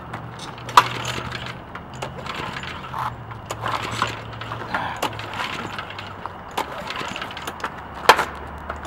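Attempts to pull-start a minibike's small engine: repeated recoil-starter pulls with rasps and sharp metallic clicks and clatters. The loudest clicks come just under a second in and again near the end, over a low steady hum.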